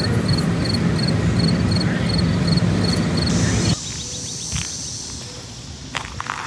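Surf breaking on the shore, a steady rushing noise, with a regular high chirping about two or three times a second. A little over halfway through, both stop abruptly and give way to a much quieter outdoor background with a few faint short chirps.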